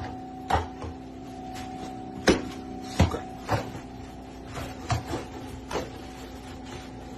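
A thin wooden stick poked under the bottom of a white cabinet, knocking and scraping against the wooden floor and the cabinet edge: a string of sharp, irregular knocks over a steady low hum.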